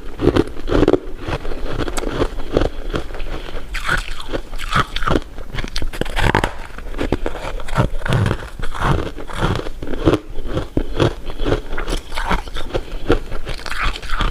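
Close-up eating sounds of candy and jelly sweets: repeated bites and chewing, with many short crunchy, crackling clicks.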